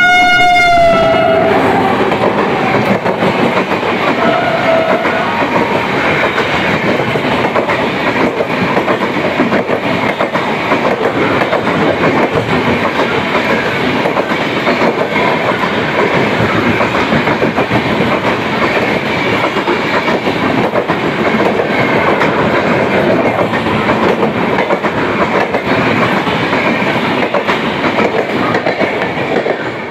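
WAP-7 electric locomotive's horn sounding as it passes, its pitch dropping about a second in, followed by the steady rush and rapid wheel clatter of express passenger coaches running through at speed without stopping. The sound cuts off suddenly at the end.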